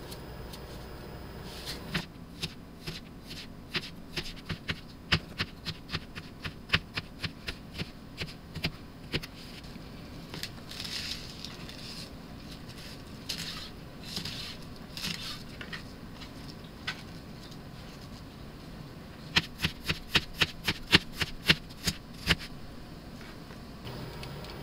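A kitchen knife chopping leafy greens on a plastic cutting board. A run of sharp knocks about two or three a second gives way to a stretch of softer slicing, then a quicker burst of chops near the end.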